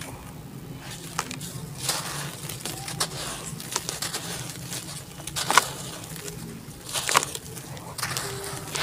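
Hands crumbling and crushing dry, dusty red dirt clumps, handfuls of crumbs falling back onto the pile in irregular crunches and crackles, the loudest about five and a half and seven seconds in. A steady low hum runs underneath.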